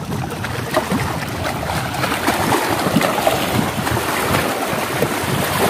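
Small waves splashing and lapping against a rocky shore: a steady wash of water noise with small splashes through it.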